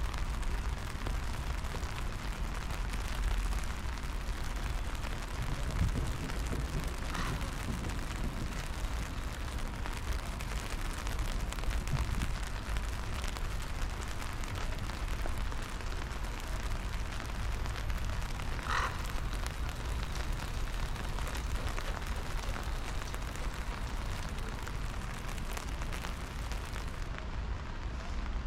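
Outdoor ambience in light rain: a steady hiss over a constant low rumble of wind on the microphone, with two short chirps about seven and nineteen seconds in.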